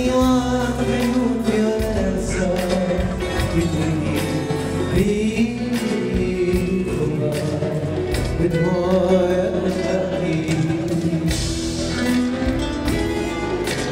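Music with singing over a steady drum beat and bass line.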